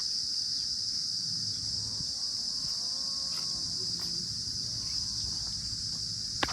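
Steady high-pitched insect chirring over a low rumble, with a distant drawn-out animal call lasting about two seconds in the middle, and a sharp click near the end.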